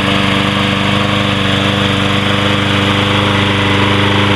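Troy-Bilt push lawn mower engine running steadily, with an even, rapid firing beat.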